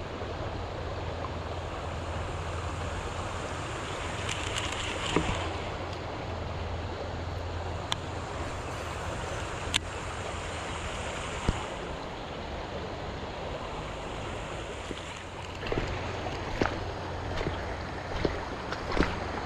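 Water sloshing and swishing around the legs of someone wading through shallow water, over a steady low hum, with occasional short sharp clicks.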